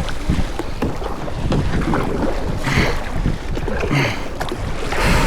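Wind buffeting the microphone over water splashing around a kayak on open water, with louder splashes about three, four and five seconds in.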